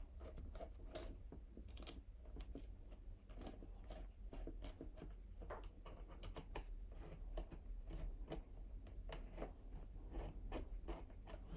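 Faint irregular clicks and scrapes of hands fitting a through connection between the two ports of a nanoVNA, the calibration's through step.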